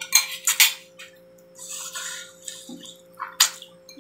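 Wet slurping and sucking of a chicken foot in adobo sauce, in short bursts: a quick cluster in the first second, another around two seconds in, and a sharp one near the end.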